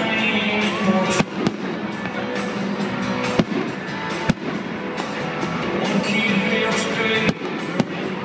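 Aerial firework shells bursting in the sky, about half a dozen sharp bangs spread irregularly over continuous music.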